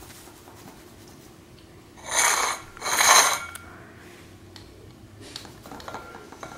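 Two short, crisp rustles about two seconds in, from a hand brushing and shaking the blades of a pot of cat grass.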